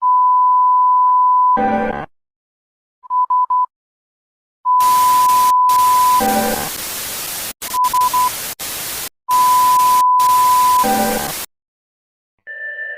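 Simulated emergency-alert broadcast signal. A steady high test tone lasting about a second and a half is cut off by a short harsh buzz, then three quick beeps follow. The pattern repeats twice more over loud bursts of static that cut in and out, and synthesizer music begins near the end.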